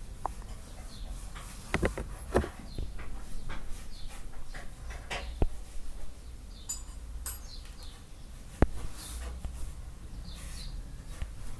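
Scattered sharp knocks and clinks, the loudest about two seconds in and near the end, with small birds chirping in the background.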